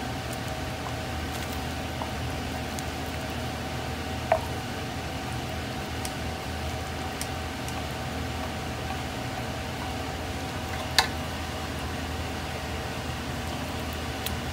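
Instant noodles and greens are placed into a ceramic bowl of soup over a steady appliance hum with a faint high whine. Two sharp clinks ring out about four and eleven seconds in as a utensil or the pot strikes the bowl's rim.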